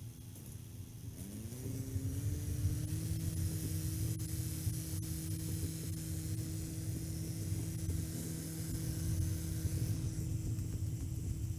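International 745 XL tractor's engine running with a low rumble, revving up a little over a second in, its pitch rising and then holding steady at the higher speed.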